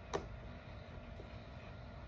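A single light click just after the start, with a much fainter tick about a second later: small parts of a doorbell-mount bracket being handled while its screw is taken out. A faint steady low hum sits underneath.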